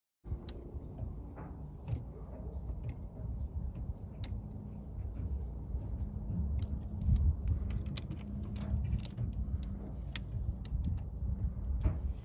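Scattered metallic clicks and clinks from hand tools and steering-wheel parts being handled, over a low rumble of handling noise.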